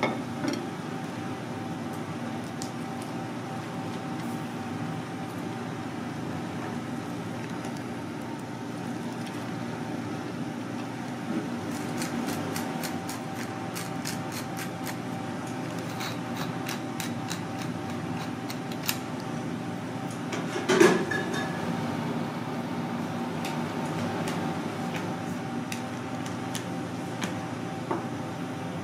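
Steady hum of a ventilation fan carrying a faint constant tone, with scattered faint ticks through the middle and one sharp knock a little past two-thirds of the way through.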